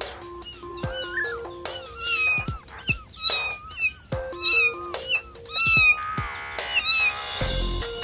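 Young kitten mewing over and over, short high-pitched mews about one to two a second.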